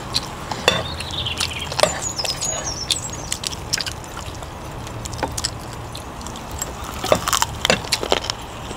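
People eating barbecued chicken wings by hand: scattered small clicks and smacks of chewing, fingers and plates, thickest near the end, over a low steady hum.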